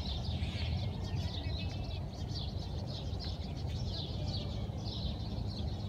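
Small birds chirping repeatedly in short, high notes, over a steady low rumble.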